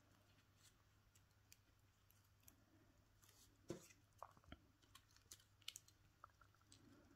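Near silence, with faint scattered ticks and rustles of hands wrapping floral tape around a foam flower stem. The sharpest tick comes about halfway through.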